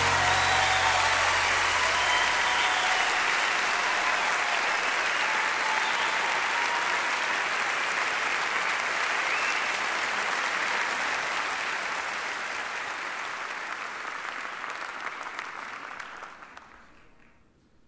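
Audience applause, as at the end of a live song recording, fading out over the last few seconds.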